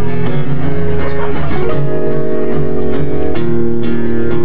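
Live acoustic band music: guitars strumming chords, changing chord twice.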